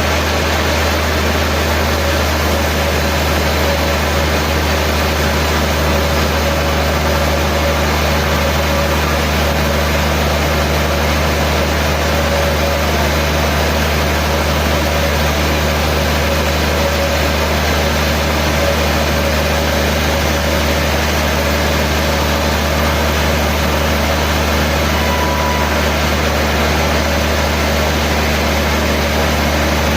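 Sawmill machinery running steadily: a loud, even deep hum with a faint steady whine above it, unchanging throughout.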